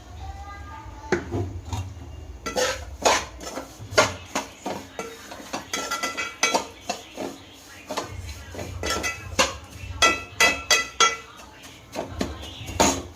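A metal spoon stirring and scraping in a metal pan, with many irregular clinks and knocks that ring briefly.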